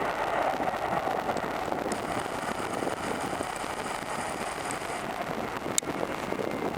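Boeing 767-300 jet engines at takeoff thrust: a steady rushing noise, with faint high steady tones for a few seconds in the middle and a single sharp click near the end.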